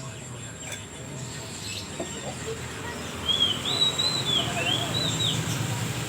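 Oriental magpie-robin (kacer) singing a quick run of about six arched, whistled notes about three seconds in, over a steady low rumble.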